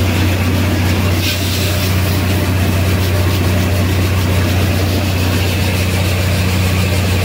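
Tractor-driven threshing machine running steadily while threshing mung beans: a constant low engine hum under a broad, even whir of the machine.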